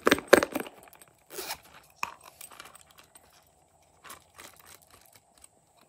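Hands handling hollow plastic toy containers: a quick cluster of loud clicks and knocks at the start, then scattered lighter clicks and taps.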